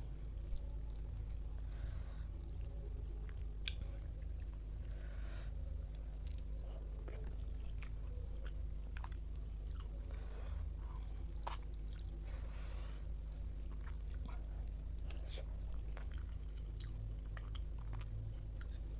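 A person chewing and eating a meal of rice and curries, close to the microphone: scattered short clicks of chewing over a steady low hum.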